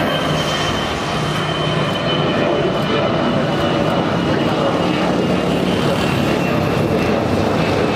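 Jet airliner engines running, a steady roar with a high whine that slowly drops in pitch.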